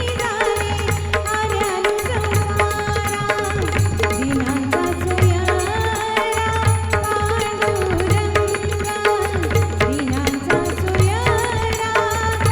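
Indian music on tabla and pakhawaj: deep drum strokes in a steady rhythm under a sustained melody line that moves between held pitches.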